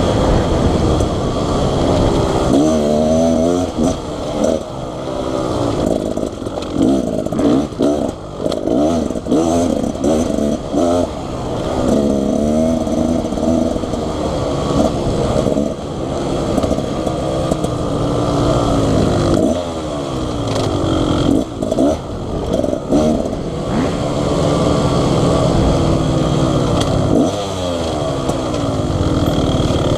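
Dirt bike engine being ridden hard on a trail, its pitch climbing and dropping again and again as the throttle is opened and closed.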